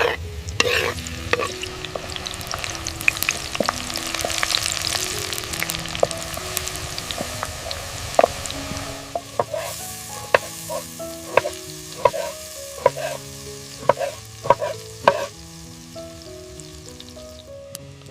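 Food sizzling and frying in a pan, with sharp clinks of a utensil that come thicker in the second half, over soft background music of held notes.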